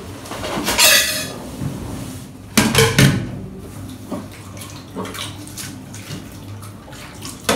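Tap water running into a stainless steel kitchen sink while a stack of plates is handled, the plates clinking together; a louder clatter of dishes comes about two and a half to three seconds in, with lighter knocks after.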